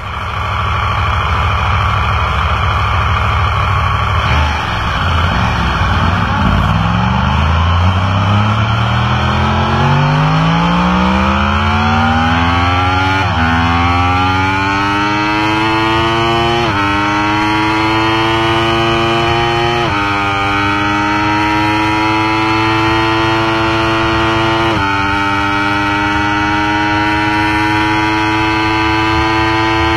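Yamaha YZF-R1 crossplane inline-four engine running, then accelerating flat out from a standstill through the gears. The engine note climbs steadily from about five seconds in, and four quick upshifts each drop the pitch suddenly before it climbs again.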